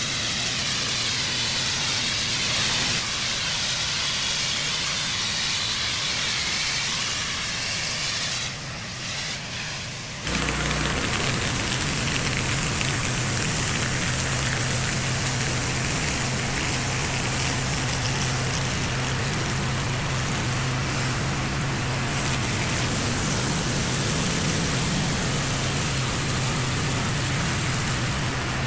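Pressure washer spraying water onto a driveway, a steady loud hiss. About ten seconds in the sound changes abruptly to a broader hiss with a steady low hum beneath it.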